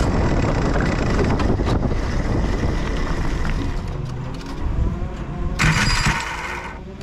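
Racing kart engine running at low revs and fading as the kart rolls slowly in. Near the end a brief loud rush of hiss cuts in for about a second.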